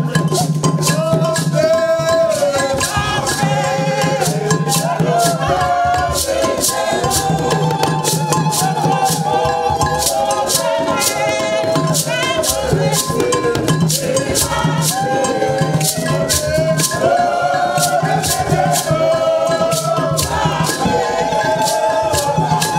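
A choir singing together over hand rattles shaken to a steady beat.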